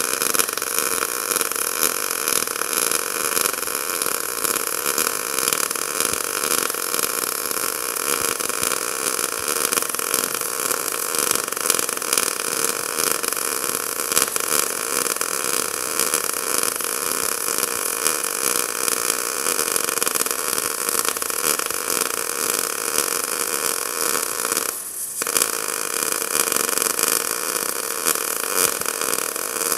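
Merkle MobiMIG 180K MIG welding arc running steadily in the ColdMIG controlled short-circuit process, a continuous dense hiss, with a brief break about 25 seconds in.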